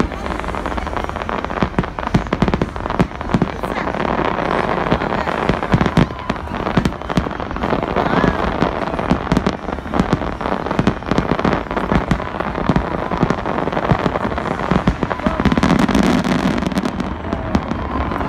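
Fireworks going off: a dense, continuous run of sharp bangs and crackling.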